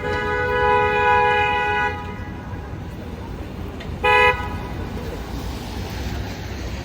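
A car horn honking: a held two-tone honk that cuts off about two seconds in, then one short toot at about four seconds, over the low rumble of city traffic.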